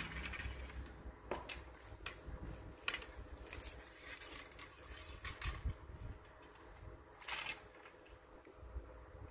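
A telescopic fishing rod being handled: irregular light clicks and knocks as its sections and butt cap are turned and touched, with a brief scrape about seven seconds in.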